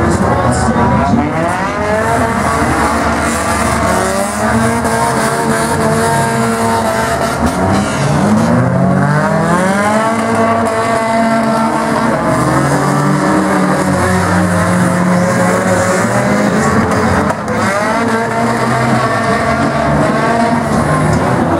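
Several small race-car engines running hard at once in a figure-eight race. Their overlapping pitches keep rising under throttle and dropping as the drivers shift and lift.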